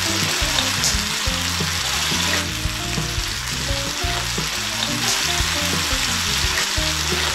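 Hamburg steak, potatoes and carrots frying in oil in a cast-iron skillet, just uncovered after steam-frying under its lid. A steady sizzle with occasional small pops.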